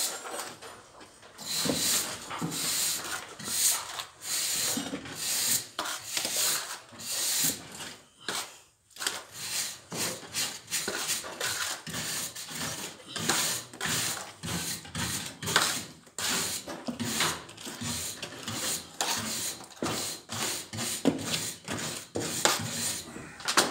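A hand tool scraping and rubbing against old wooden ceiling boards and plaster in quick, irregular strokes, with a brief pause about eight seconds in.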